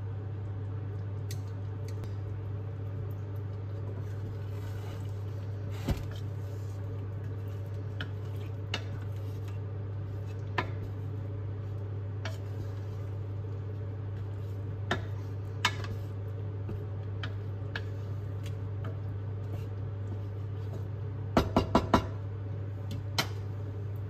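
Dishes and cutlery clinking now and then over a steady low hum, with a quick run of clattering about 21 seconds in.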